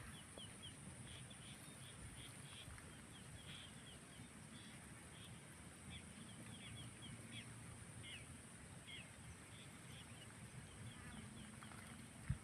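Faint bird calls outdoors: many short, quick chirps, scattered unevenly, over a steady high hiss.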